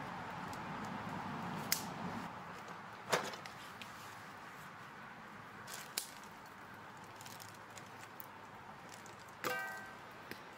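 A few sharp clicks and knocks of things being handled, over a steady rush that fades about two seconds in. Near the end comes one sharp clink that rings briefly, like a small metal object struck.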